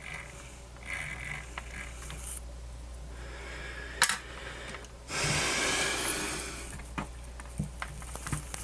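Small clicks and scrapes of hand tools working on the radio's plastic and metal parts, with one sharp click about four seconds in. Shortly after comes a breathy rush of air lasting about a second and a half, the loudest sound here.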